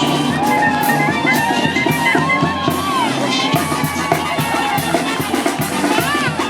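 Parade music with a steady beat, short gliding high tones and crowd sound over it.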